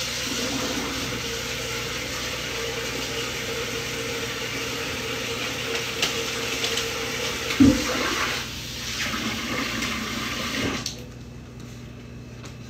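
Kitchen tap running into the sink while dishes are washed, with one loud thump of a dish about two-thirds of the way through. The water shuts off near the end.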